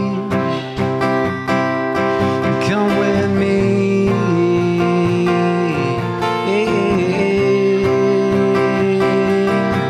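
Male singer's voice with guitar accompaniment, singing long held notes that slide between pitches over the steadily played guitar.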